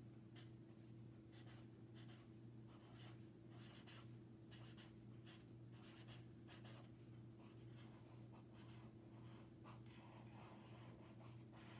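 Faint strokes of a felt-tip marker on poster paper, writing a word and then drawing a jagged line in short, uneven strokes. A steady low hum runs underneath.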